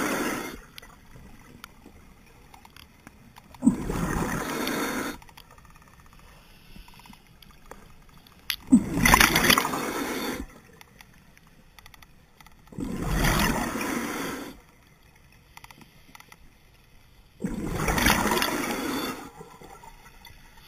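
Scuba diver's exhaled breath bubbling out of the regulator: a loud bubbly rush lasting about a second and a half, repeating roughly every four and a half seconds, with quieter stretches between as the diver breathes in. Four full exhalations, plus the tail of one right at the start.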